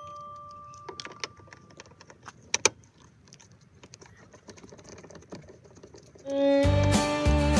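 Light clicks and taps of a 10 mm socket wrench working the pillar trim bolts, with one sharp click about two and a half seconds in, over a steady ringing tone that fades out in the first two seconds. Background music with a steady beat comes in loudly about six seconds in.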